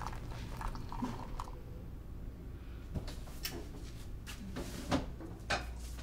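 Scattered light knocks and clicks, like household objects being handled, over a low steady hum; the two sharpest knocks come near the end.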